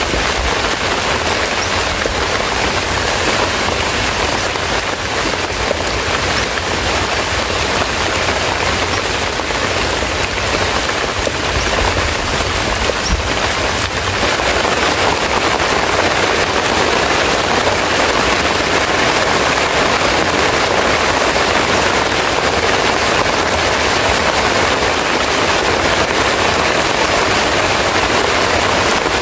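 Steady heavy rain: an even hiss of falling rain with a low rumble underneath, growing a little heavier about halfway through.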